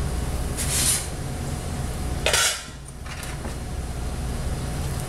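Soup being ladled into a bowl: a ladle scraping and knocking against the pot and bowl, with two short bursts about a second in and about two and a half seconds in, over a steady low hum.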